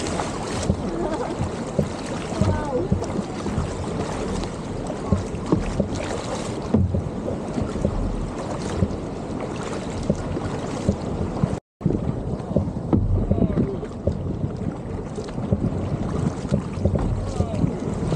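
Paddling a tandem surfski: wing paddle blades splashing in and out of the water and sea washing along the hull, with wind buffeting the microphone. The sound cuts out briefly about two-thirds of the way through.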